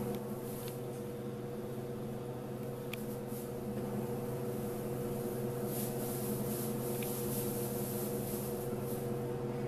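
Steady mechanical hum made of several low tones, with faint rustles and a few small clicks as hay is stirred by jaguars moving through it.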